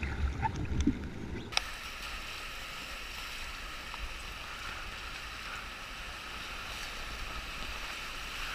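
Whitewater rapids rushing steadily around a canoe. For the first second and a half a heavy rumble of wind on the microphone covers it, then cuts off abruptly.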